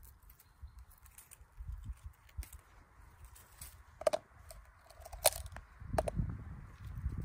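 Rustling and handling noise while picking through low forest undergrowth of moss and berry plants, with low rumbling on the microphone that thickens near the end. Three sharp clicks come about four, five and six seconds in.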